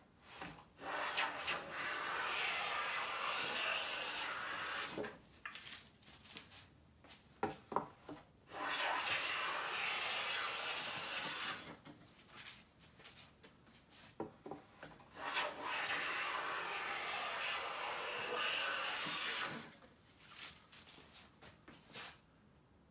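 Siegley #7 jointer plane cutting long shavings from a straight-grained pine board: three long, steady hissing strokes of about three to four seconds each. Short knocks and clicks come between the strokes.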